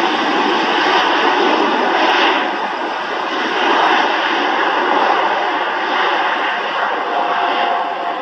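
Boeing 747-8F freighter's four GEnx jet engines running loud and steady as the aircraft rolls along the runway. A faint steady whine comes in near the end.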